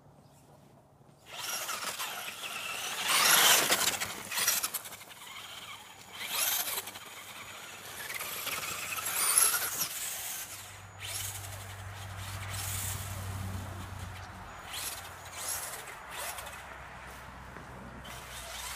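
RC car driving on a wet, slushy driveway, its motor whining and tyres hissing through the slush in bursts of acceleration, loudest about three seconds in and again near nine seconds.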